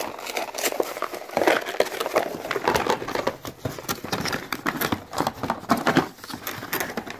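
Small cardboard box being handled and opened by hand, its flaps scraping and rustling in a dense, irregular run of short scrapes and clicks.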